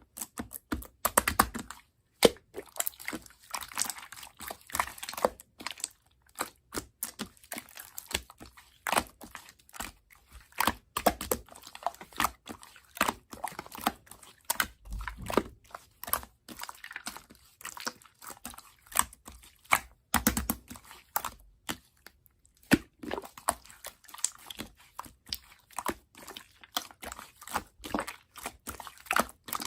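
Close-up crunching and crinkling: many quick, irregular crackles and small taps, with occasional louder crunches.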